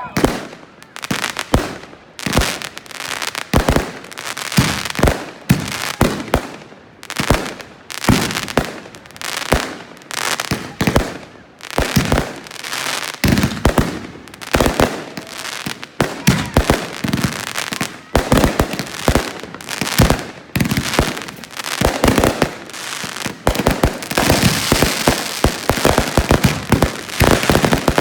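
Fireworks going off in quick succession: a steady barrage of sharp bangs, several a second, turning into a dense crackling near the end.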